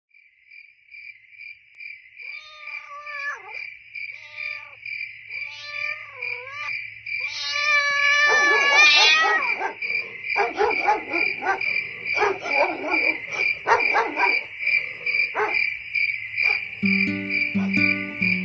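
Crickets chirping in a steady, rapid pulse, fading in at the start. Several cat meows come over them in the first half, then a louder outburst of cat yowling about eight seconds in. A plucked-string music intro comes in near the end.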